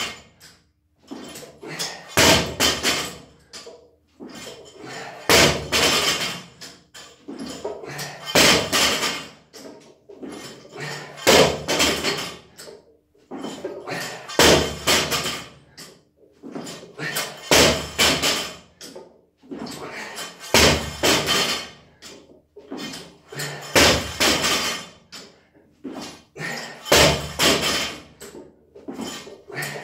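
50 kg barbell with rubber bumper plates dropped onto a rubber mat after each power clean: a heavy thud with a short rattle of plates and bar, about every three seconds, some nine or ten times.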